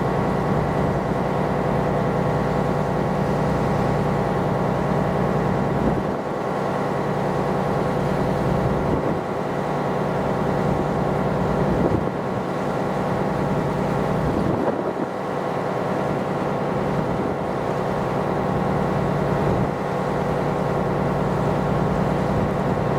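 Ship's engine and machinery running steadily: a constant hum with several steady tones over a low rumble, briefly shifting a few times.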